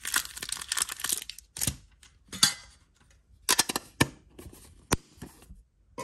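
Crinkling and rustling of foil booster-pack wrappers being handled at a small metal card tin. It comes as a dense stretch in the first second, then in short separate bursts, with a sharp click a little before the end.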